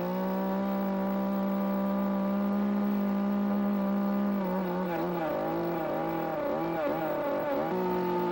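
Chainsaw engine running at high revs, cutting a mortise into the king post log. The pitch holds steady, then wavers up and down for a few seconds under the load of the cut before steadying again.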